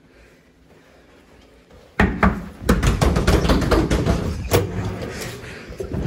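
Quiet, then about two seconds in a sudden run of loud knocks and bangs, like banging on or slamming a door.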